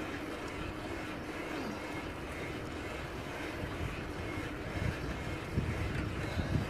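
Steady rolling and wind noise from a Huffy beach cruiser bicycle riding along a paved road, with wind buffeting the microphone in low gusts that grow stronger in the last couple of seconds.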